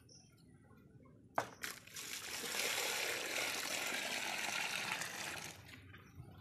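Water poured in a steady stream into a small plastic tub that already holds water, splashing and trickling for about four seconds before tailing off. A short knock comes just before the pour starts.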